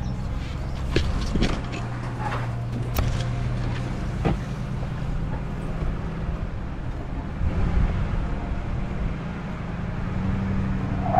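Vehicle engine running steadily at low speed, a low drone, while driving a sandy track. Several brief sharp knocks come in the first few seconds.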